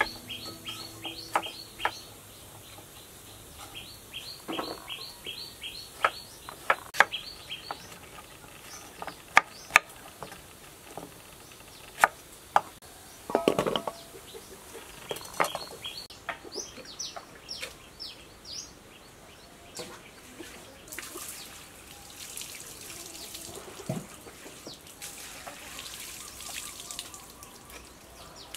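Knife knocking on a cutting board as bottle gourd is cut, single sharp knocks a second or two apart, while a bird repeats short high chirps in runs. Near the end, a soft rush of running water.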